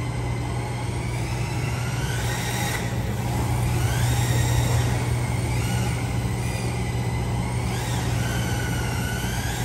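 Motor of a 1/10-scale electric RC drift car whining, rising and falling in pitch several times, over a steady low hum.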